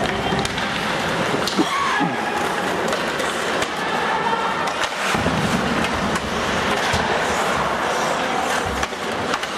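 Live ice hockey play: skates scraping and carving the ice with scattered sharp clacks of sticks and puck, and voices calling out from the rink and stands.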